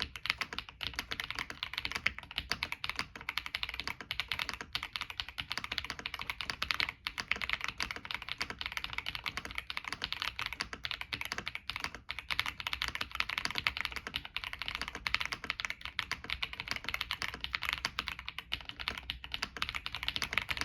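Fast, continuous typing on a tenkeyless mechanical keyboard (ilovbee B87, leaf spring mount) with lubed Akko Lavender Purple tactile switches and stock keycaps and stabilizers: a dense stream of keystroke clicks, with short breaks about seven and twelve seconds in.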